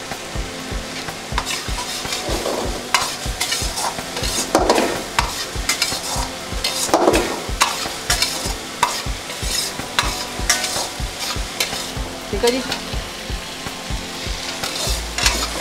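Long steel ladle stirring and scraping Maggi noodles in a black wok, with frequent clinks and scrapes of metal on metal over the steady sizzle of the simmering noodles and liquid in the pan.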